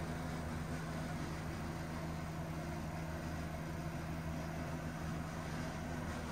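A steady low mechanical hum with one constant low tone under a light hiss, unchanging throughout.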